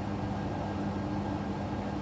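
Hoover Sudslock washing machine on its final spin, its drum turning at a steady speed with an even, unchanging hum.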